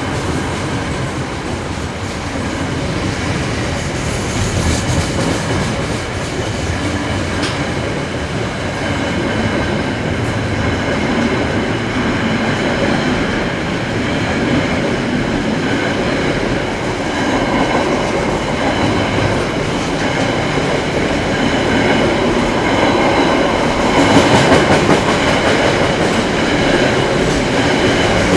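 Train hauled by KiwiRail EF-class electric locomotives running on the rails: a steady rumble with the clickety-clack of wheels and a faint steady whine, growing a little louder toward the end.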